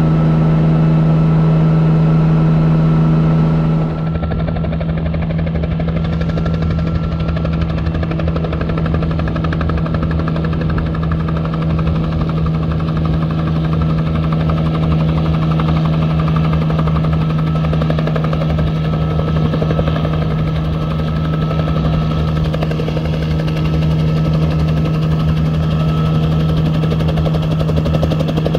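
A 1967 Bell 47 helicopter's piston engine and main rotor running with a steady low hum, heard first from inside the open bubble cockpit. About four seconds in the sound switches to outside, with the helicopter hovering low over the tarmac and then resting on its skids, rotor still turning.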